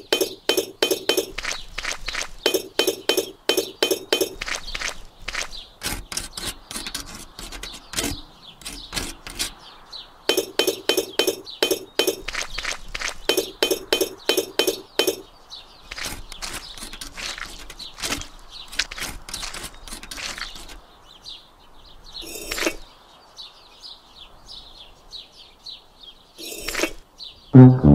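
Small fired-clay miniature bricks clinking and tapping as they are set into wet cement, in quick runs of several sharp clicks a second, then sparser single taps.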